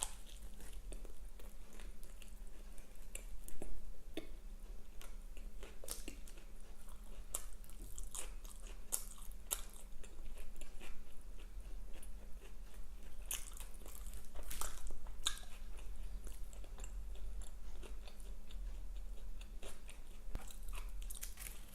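Close-miked chewing and biting on crunchy breaded fried food, with irregular crisp crunches and wet mouth clicks.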